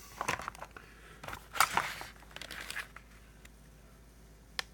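Handling noise of a bare plastic chainsaw housing being picked up and turned over by hand: rustling, scraping and a run of light clicks for about three seconds, then one sharp click near the end.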